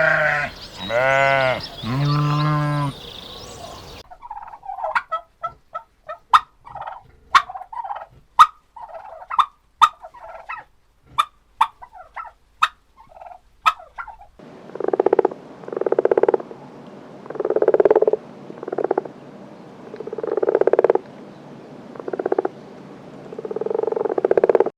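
Farm animals calling in turn: three bleats, then a run of short, sharp chirping calls, then poultry calling in a long series of repeated pulsed calls.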